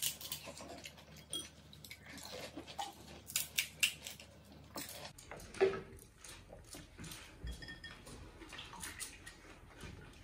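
Golgappas being eaten fast: crisp puri shells cracked open and crunched, with chewing and mouth sounds in short, irregular snaps and clicks.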